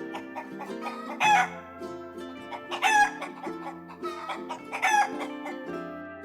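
A chicken calling three times, short loud calls about two seconds apart, over background music with plucked notes.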